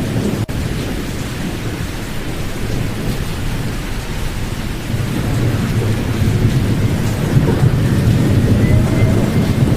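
Pink noise with the high frequencies filtered out: a steady, deep, rushing hiss weighted toward the low end. There is a momentary dip in the noise about half a second in.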